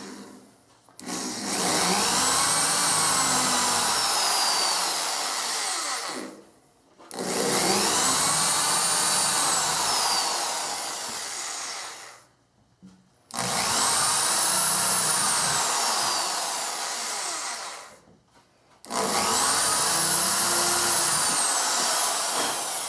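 Corded Ridgid electric drill boring small pilot holes through a plywood cabinet back into the pine edge below: four runs of several seconds each, with short pauses between, the motor's pitch rising and then falling in each.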